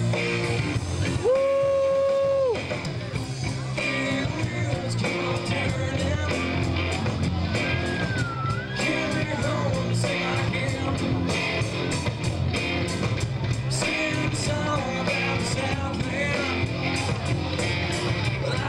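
Live rock band playing through the PA: electric guitars, bass and drums, with a long held note about a second in and a wavering, bending note near the middle.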